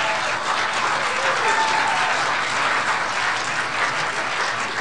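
Audience applauding, steady and sustained, with a few voices heard among the clapping.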